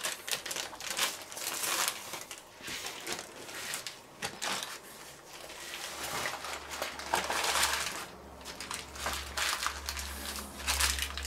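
Brown paper crinkling and rustling in irregular bursts as it is rolled tightly around a bacon-wrapped meat roll and its ends are folded shut.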